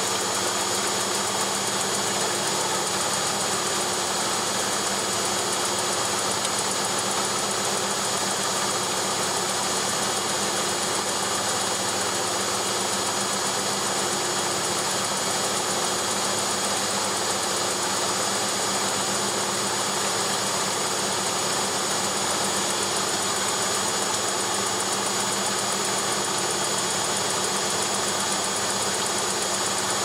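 Front-loading washing machine spinning its drum at high speed in the spin cycle: a steady mechanical drone with a constant high-pitched whine.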